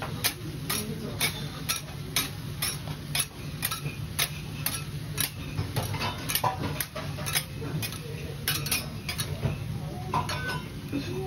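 A kitchen utensil clinking against a bowl or dish in a steady rhythm, about two strikes a second, as food is mixed or stirred, with a steady low hum underneath.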